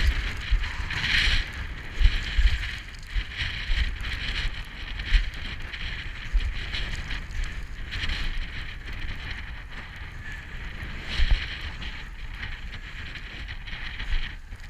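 Wind buffeting the microphone in uneven gusts, with a rough crunching hiss from boots on loose scree and snow during a descent that surges and fades irregularly.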